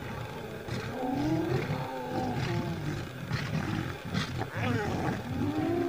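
A group of spotted hyenas calling over one another: repeated rising and falling whoops over low grunting.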